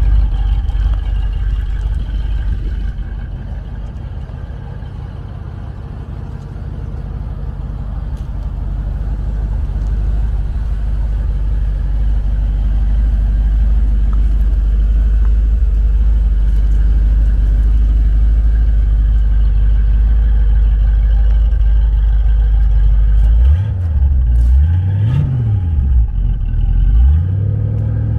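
Chevrolet Scottsdale pickup's engine running at idle, a steady low rumble; near the end its low tones waver up and down several times.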